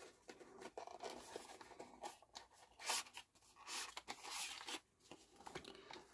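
Small paperboard box being opened by hand: flaps pulled back and an inner tray slid out, giving a string of brief cardboard rustles and scrapes, the loudest about three seconds in and again around four seconds in.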